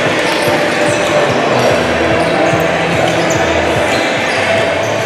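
A basketball bouncing on an indoor court floor as a player dribbles, heard over the steady echoing din of a sports hall during a game.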